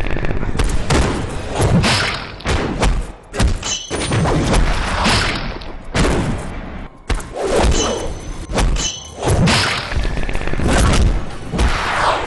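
A rapid run of loud thumps and impacts, many in quick succession, from a staged fist-and-kick fight, with faint music underneath.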